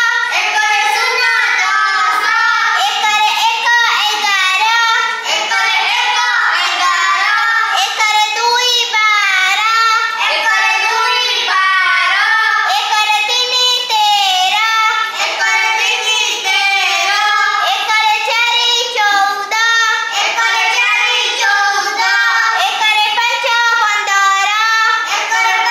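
A young girl singing a children's learning song.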